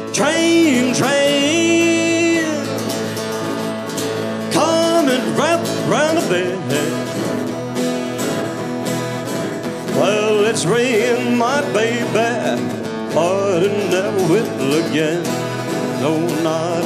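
Acoustic guitars strummed in a steady country rhythm, with a man's voice singing melodic phrases over them that drop out for a few seconds in the middle.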